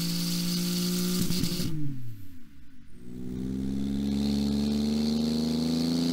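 Porsche 911 GT2 RS twin-turbo flat-six running through an aftermarket Inconel exhaust. It holds a steady note, then falls away about two seconds in; after a brief dip the engine sound returns and climbs slowly and steadily in pitch.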